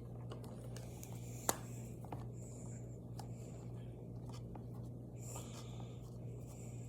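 Marker tip scratching faintly across paper in short strokes, with one sharp click about a second and a half in, over a steady low hum.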